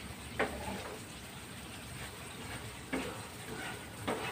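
Coconut milk being cooked down in a frying pan over a gas burner to make latik: a steady hiss of the heating liquid, with a spatula knocking and scraping against the pan three times.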